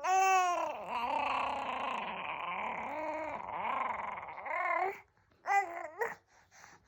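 A four-month-old baby vocalizing: one long drawn-out sound of about five seconds that starts high and wavers up and down in pitch, then two short calls.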